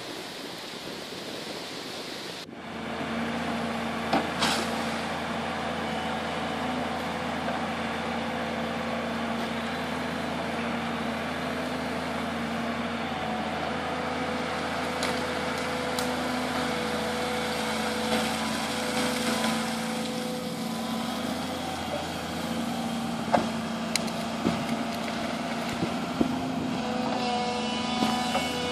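An even rushing noise for the first couple of seconds, then a Volvo EC160BLC tracked excavator's diesel engine running with a steady hum, broken by a few sharp knocks and cracks as it clears trees and brush from the riverbank.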